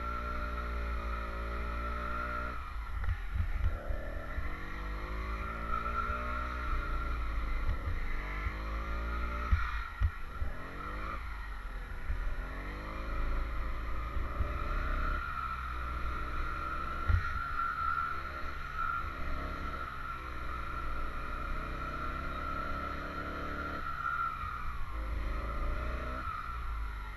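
80cc two-stroke motorised-bicycle kit engine running, its pitch falling and rising again and again as the throttle changes. A steady low rumble with occasional short thumps runs underneath.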